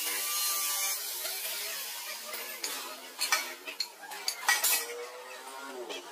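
Angle grinder cutting through steel rebar with a steady hiss that fades after about a second. This is followed by several sharp metal clanks, the loudest near the middle, as the grinder and bar are set down and handled.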